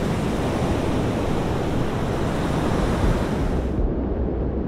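Steady rush of wind and sea on an open microphone aboard a boat under way, with wind buffeting the mic. About four seconds in the hiss cuts off suddenly, leaving a duller low rumble.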